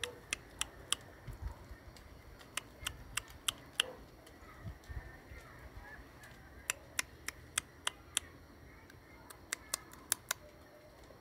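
Sharp tongue clicks made with the mouth to imitate a gecko's chirp, in short runs of three to five clicks a few per second, repeated four times.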